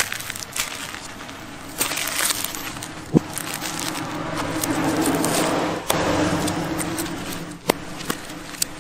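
Kitchen knife scraping and chopping at the charred husk of a roasted coconut: dry, crackly scraping broken by sharp knocks of the blade, with a longer, louder stretch of scraping about halfway through.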